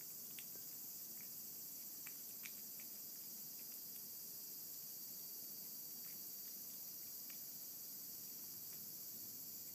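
Cat eating a chunk of wet canned cat food from a plate: faint scattered chewing and licking clicks over a steady high hiss.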